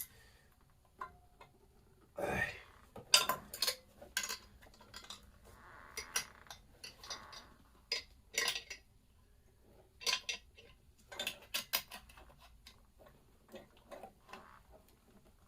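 Hand tools and engine parts clinking and clanking against each other in irregular sharp metal knocks, with a heavier knock about two seconds in and a short scraping hiss around six to seven seconds in.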